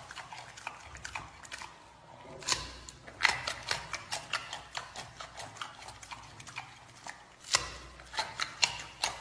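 Giant panda chewing a banana: a rapid run of clicking and smacking mouth sounds, several a second, with a few louder ones about two and a half, three and seven and a half seconds in.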